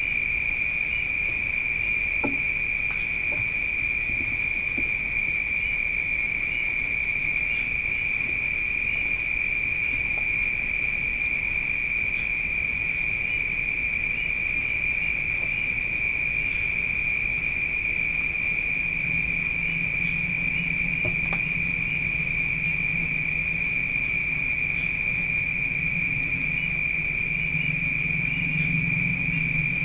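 Steady chirring of crickets in a night insect chorus, holding a continuous high pitch throughout. A low hum joins in about two-thirds of the way through.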